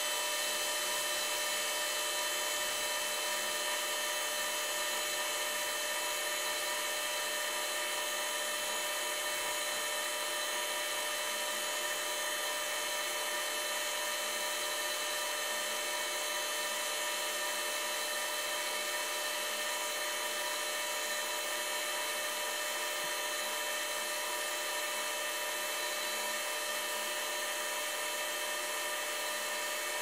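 Wood lathe running at steady speed with a high, even motor whine, spinning a cherry burl pen blank on a pen mandrel while a flat pad is held against the blank to finish it.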